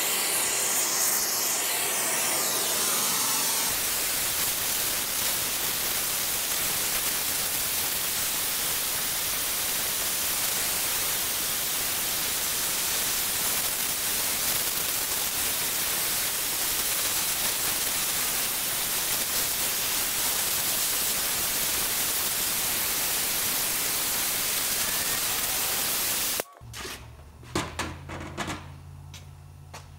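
Gas torch flame hissing steadily as it heats a steel parking brake lever. The hiss stops abruptly near the end, and a few faint clicks and knocks follow.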